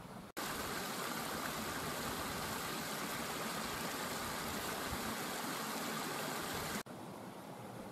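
Small moorland stream running over rocks: a steady rush of water that starts abruptly just after the beginning and cuts off about a second before the end.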